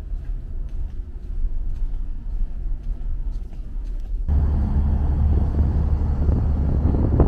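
Low steady hum of a car ferry's engines heard inside the passenger deck, then about four seconds in, stepping out through a door onto the open deck, a much louder rumble of wind on the microphone over the ship's engine drone takes over.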